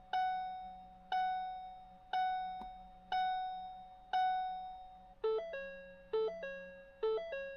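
The car's electronic warning chime: a single ding about once a second, five times, each fading away. About five seconds in it switches to a quicker chime of a few short notes, repeated three times.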